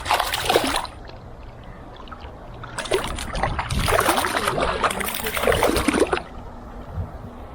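Water splashing in two bursts, a short one at the start and a longer one about three to six seconds in, as a caught trout is handled in the creek and let go.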